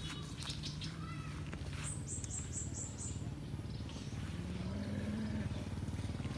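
Dogs growling low, with a bird giving a quick run of about six high chirps about two seconds in. In the second half a small motorbike engine comes closer.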